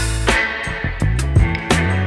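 Background music: a funk-style groove with bass, guitar and drum kit keeping a steady beat.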